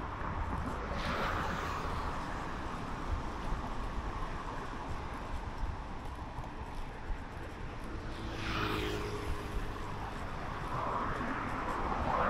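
Road traffic: three cars pass one after another, each one's tyre and engine noise swelling and fading, about a second in, past the middle, and near the end, over a steady low traffic rumble.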